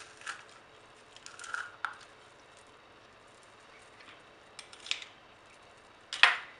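Metal garlic press working garlic cloves into a bowl: a handful of short clicks and scrapes from its hinged handles, with the sharpest clack near the end.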